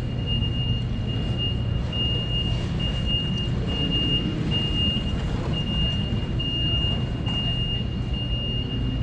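Steady low rumble of background noise in a large exhibition hall, with a high electronic beep repeating about every two-thirds of a second throughout.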